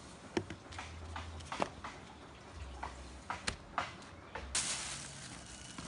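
Scattered light clicks and taps, a dozen or so at irregular intervals, over a faint low rumble. About three-quarters through, a steady hiss sets in suddenly.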